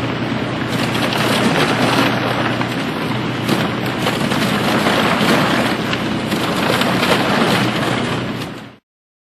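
Boat with a Pro-Drive mud motor breaking through ice: a dense, continuous crunching and crashing of ice over the engine's steady drone. It cuts off suddenly near the end.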